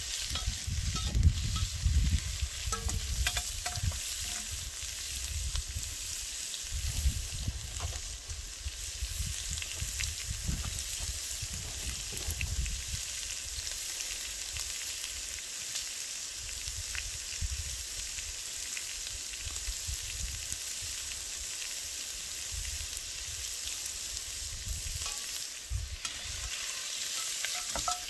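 Black bear meat and onion sizzling in a cast iron pot over a campfire, stirred with a wooden stick, with scattered small crackles and clicks. A low rumble comes and goes through the first half.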